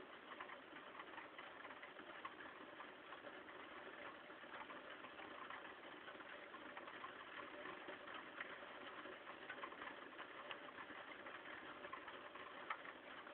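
Sleet pattering steadily: a faint, even hiss made of many small ticks.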